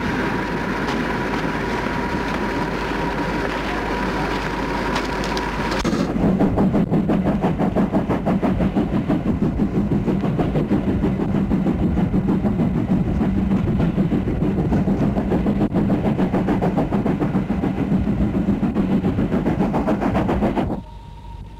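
Steam-hauled passenger train running, heard from a coach: a steady rumble, then after a cut about six seconds in a fast, regular beat of the train under way, which cuts off sharply near the end.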